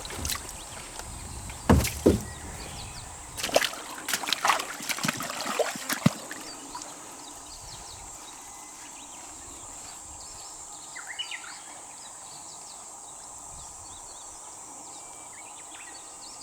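Water splashing and sloshing in a koi pond being harvested, a run of loud, sudden splashes in the first six seconds. After that a steady high insect drone carries on, with a few faint chirps around eleven seconds.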